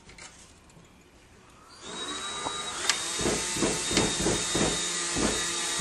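A vacuum cleaner switches on about two seconds in and runs with a steady whooshing hiss and a thin high whine. From about three seconds in, repeated low thumps come roughly three times a second.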